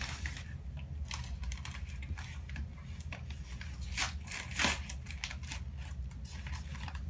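Orchid packing material being handled: scattered light clicks and crinkly rustles, with two louder crinkles about four seconds in and again half a second later, over a steady low hum.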